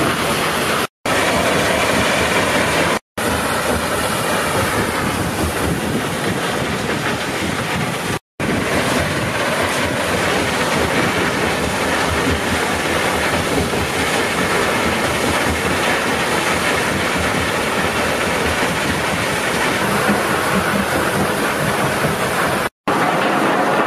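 Bucket-wheel sand washer running: a steady mechanical rumble and clatter mixed with wet sand and water pouring from the turning buckets. The sound cuts out abruptly for an instant four times.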